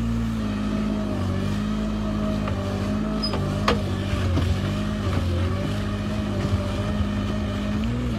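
Engine of an aquatic weed harvester running steadily, its pitch dipping slightly a few times, with a sharp knock about halfway through and a few lighter knocks after it.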